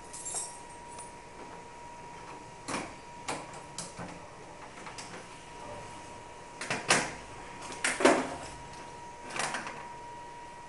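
Irregular knocks and clunks of things being handled, about half a dozen, the loudest a little past the middle, over a faint steady tone.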